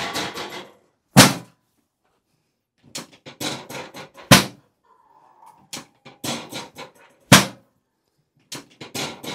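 Chiropractic drop table: three drop-table thrusts about three seconds apart, each a run of lighter clicks and knocks ending in a loud, sharp clack as the drop section falls. These are adjustments to the patient's sacroiliac joint.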